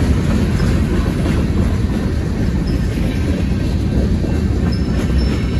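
Freight train cars rolling past a grade crossing: the steady low rumble and clatter of steel wheels on the rails as covered hoppers go by.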